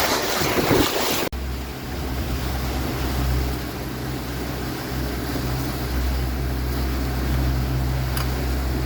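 Wind buffeting the microphone on a moving boat, cut off abruptly about a second in; after that, the boat's engine running with a steady low hum under wind and water noise.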